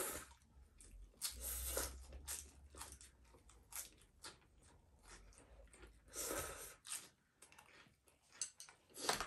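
People eating noodles from bowls with chopsticks: several noisy slurps, with chewing and small clicks between them.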